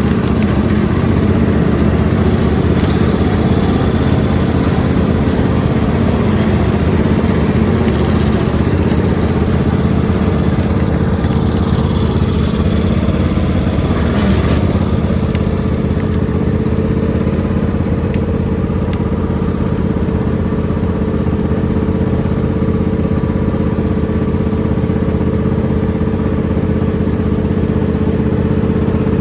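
Lawn mower engine running steadily at a constant speed, with a brief knock or rattle about halfway through.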